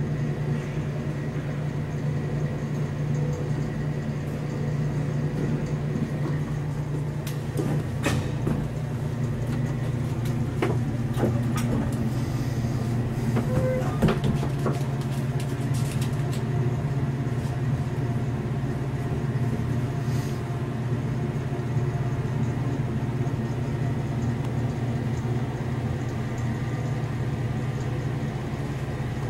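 Lift running: a steady low hum and rumble, with a few faint clicks and knocks over it.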